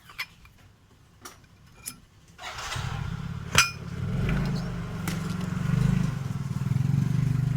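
A few light clicks, then about two and a half seconds in a motorcycle engine starts up and runs with a steady low note. There is one sharp click a second later.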